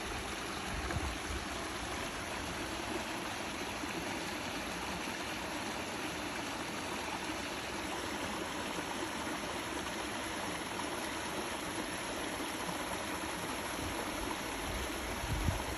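Stream of water running steadily over rocks with a continuous rushing, trickling sound, and a low thump near the end.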